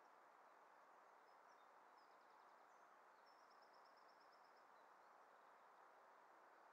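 Near silence with a steady hiss and faint bird song: a short trill about two seconds in, then a longer trill of about eight quick notes a second from about three and a half seconds in.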